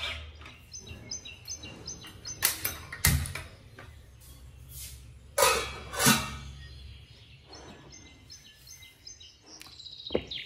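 Stainless steel pots and lids clanking on a gas stove: a handful of sharp metal knocks, the two loudest about a second apart midway. Birds chirp faintly in the background.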